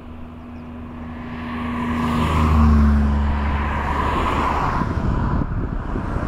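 Jet engine noise from a Boeing 737-700's CFM56-7B turbofans on approach, a low rumble that grows louder over the first two to three seconds and then stays loud.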